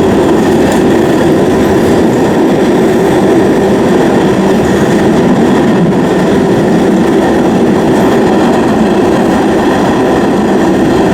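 New York City subway train running at speed: a loud, steady rumble and rattle of wheels on rails.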